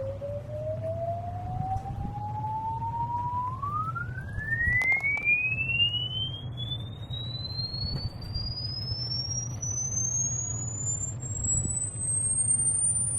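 A pure test tone sweeping upward in pitch, from a low note to a very high whistle, its climb quickening about three and a half seconds in. It is a hearing-range sweep showing how high a frequency the ear can still hear.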